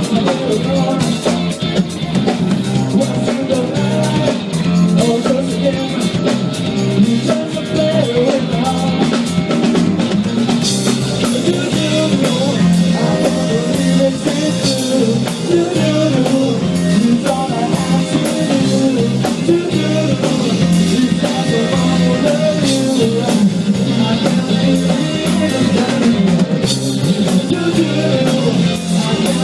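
A live band playing: guitar over a drum kit keeping a steady beat.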